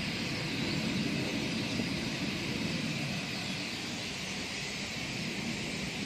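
Dense, steady chirping of a large flock of birds wheeling overhead, many calls blending into one continuous chatter, over a low steady rumble.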